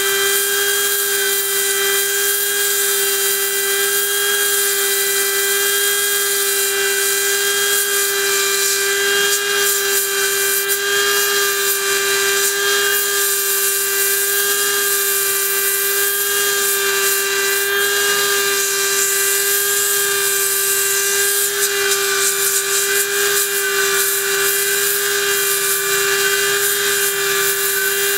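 Handheld hot air plastic welder running continuously: its blower motor gives a steady, even-pitched whine over a rush of air through the nozzle, with no change in speed.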